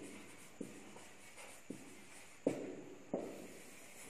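Marker pen writing on a whiteboard: about four short taps of the tip against the board, the two loudest in the second half.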